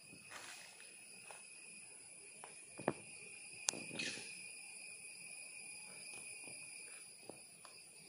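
Steady insect chorus from the surrounding forest, a constant high-pitched drone at several pitches. A few sharp clicks break through about three to four seconds in.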